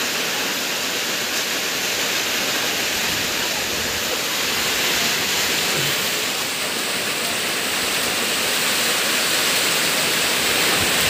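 Heavy typhoon rain with runoff water rushing across the ground in a steady, even hiss.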